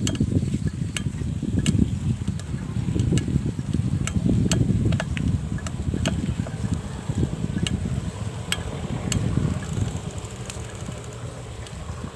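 Bicycle being ridden: a steady low rumble with a sharp tick recurring about once or twice a second.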